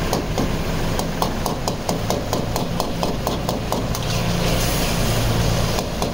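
Long metal spatula clanging and scraping against a wok as chicken karahi is stirred, about four or five ringing metallic strikes a second over a steady low hum. The strikes thin out after about four seconds.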